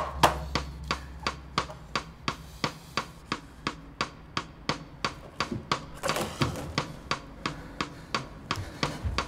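A steady, rapid ticking pulse of about four sharp clicks a second over a low hum, part of a tense film score.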